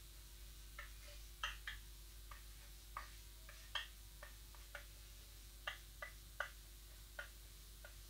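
Chalk clicking and tapping against a chalkboard while words are being written: faint, irregular clicks, several a second at times.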